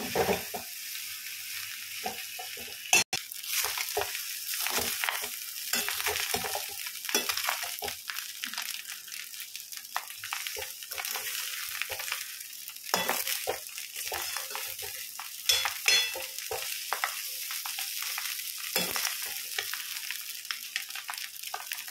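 Egg fried rice frying in a metal pan, sizzling steadily while a metal spoon stirs and scrapes it against the pan in irregular strokes.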